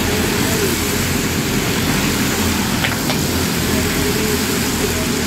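Racing karts with Predator 212 cc single-cylinder four-stroke engines running at race speed, a steady engine drone with no breaks.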